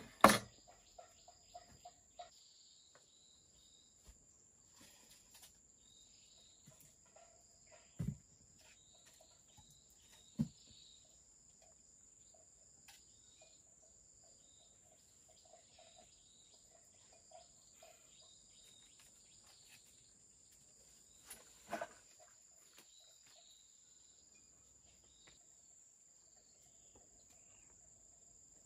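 Insects droning steadily at a high pitch. A machete is set down on a wooden plank table with a sharp knock at the start, and there are two dull thumps and a short clatter later on.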